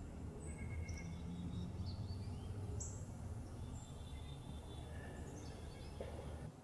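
Outdoor ambience: a steady low rumble with scattered short, high bird chirps.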